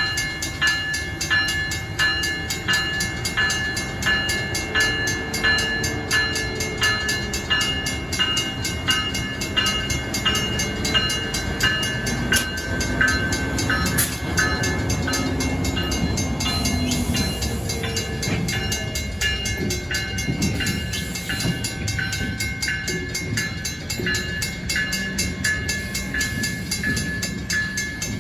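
Stockton Terminal and Eastern train rumbling past, with a fast, even repeated ringing throughout.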